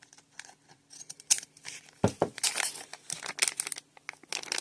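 Toy packaging crinkling and crackling as a small packet is handled and tugged at in an attempt to tear it open, with a couple of duller knocks about two seconds in.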